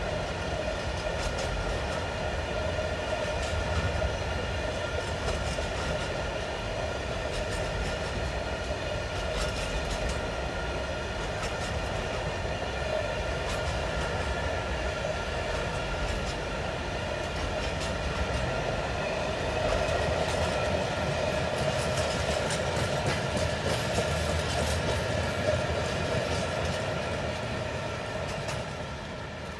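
Container freight train wagons rolling past: a steady rumble with a high whining tone held over it and scattered sharp clicks from the wheels. It fades near the end as the last wagon goes by.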